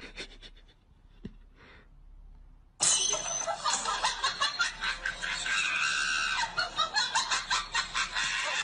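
About three seconds in, after a faint opening, loud laughter starts suddenly and goes on in quick pulses.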